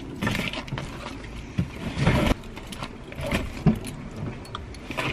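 Car keys jangling and shopping being handled and put into a car through the open door: rustling and a series of irregular knocks, the loudest about two seconds in.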